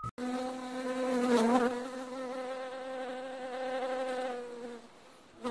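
A flying insect's steady wing buzz, one low hum with overtones that wavers briefly about a second and a half in and stops shortly before the end.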